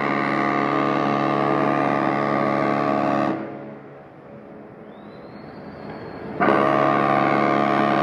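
Cruise ship Queen Elizabeth's horn sounding a long, many-toned blast that stops about three seconds in and trails off in echo. A second blast starts abruptly about six and a half seconds in.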